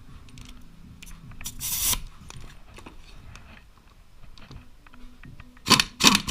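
Hand tools working on a motorcycle engine's primary drive: a short scraping rasp, then two sharp metal clanks close together near the end.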